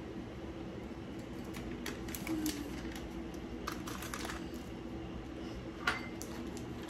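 Scattered small clicks and rustles as a small plastic packet is shaken out over a bowl and sprinkles are handled in another bowl, with a sharper click about six seconds in. A faint steady low hum runs underneath.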